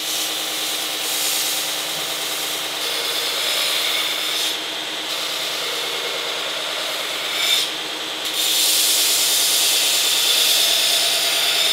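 Belt grinder running with a hardened O1 tool-steel knife blade held against the moving belt, a steady grinding hiss as the bevel and edge are ground sharp. The grinding drops away briefly twice around the middle, as the blade comes off the belt.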